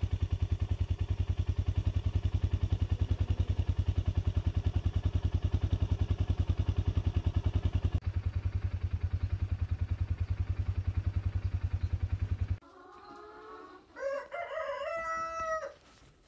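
A vehicle engine running with a steady, rapid chugging beat, which cuts off about three-quarters of the way through. Near the end a rooster crows once.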